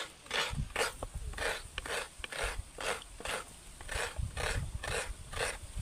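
A coconut half being grated by hand: even rasping scrapes, about two to three strokes a second.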